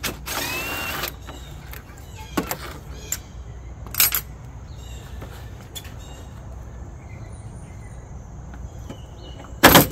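A brief power-tool whirr at the start, as a 7mm headlight bolt is run out. Then a few sharp plastic clicks and knocks as the Jeep Grand Cherokee WJ headlight assembly is worked free of its clips, the loudest a snap just before the end.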